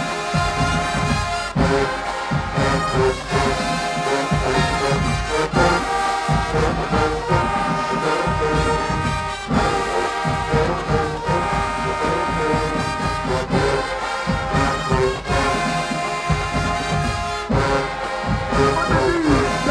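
High school marching band playing: brass section sounding full held chords over a steady pounding of drums.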